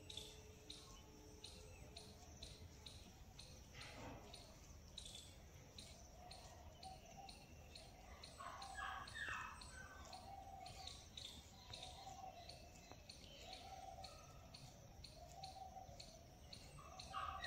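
A cat licking its own fur: a quiet, regular rasp of tongue strokes, about two or three a second.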